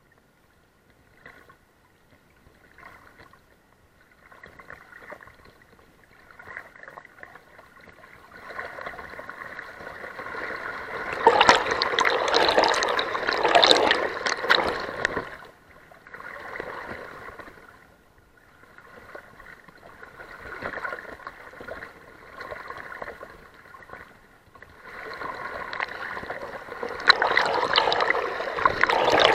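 Fast river water splashing and gurgling against a camera floating at the surface through riffles, the river running high after heavy rain. It comes in uneven surges: faint scattered splashes at first, loud rushing for a few seconds around the middle and again near the end.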